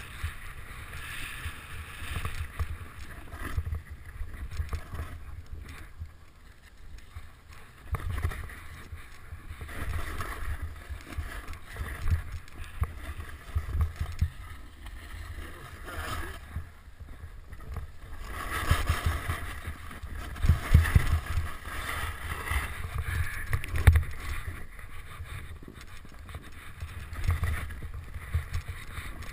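Edges carving and scraping over snow during a fast downhill run, a hiss that swells and fades with each turn and grows louder with sharper scrapes about two-thirds through, over low wind buffeting on the microphone.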